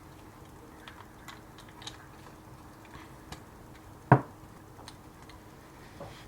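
Early Mazda RX3 rear seat belt ratchet retractor being worked by hand: scattered light clicks, with one sharp, much louder clack about four seconds in.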